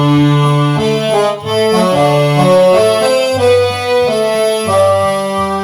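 Roland FR-8x digital accordion playing the melody with chords over a steady bass line, the notes sustained like a reed organ. Near the end it settles onto a long held chord.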